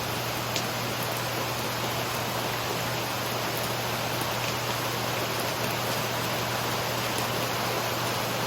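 Steady rain falling, an even hiss with a few faint sharp drip ticks.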